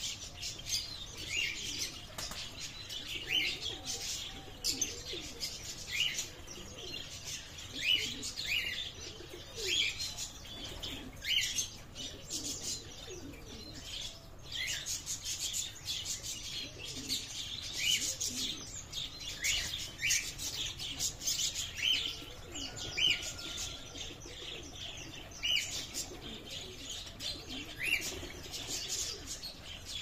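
A mix of aviary birds: short high chirps repeating every second or so, with ornamental pigeons cooing low underneath and occasional wing flaps.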